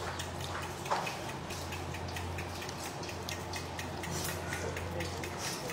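A metal spoon stirring broth in a ceramic bowl, clinking lightly and irregularly against the bowl's side, over a steady low hum.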